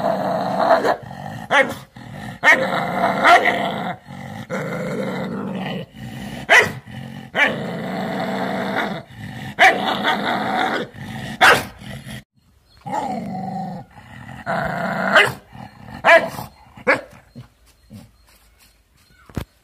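A dog growling at its own reflection in a mirror, long growls broken by short sharp barks; it goes quiet about three seconds before the end.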